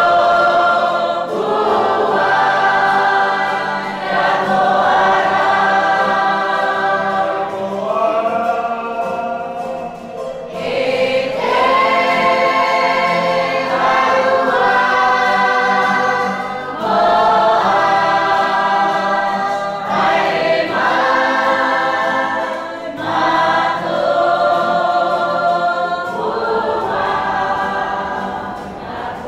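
A choir singing, in held chords that change every few seconds, fading near the end.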